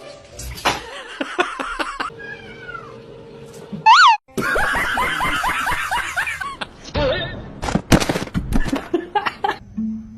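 Cats meowing and caterwauling, mixed with people laughing and music, changing abruptly several times as short clips cut from one to the next.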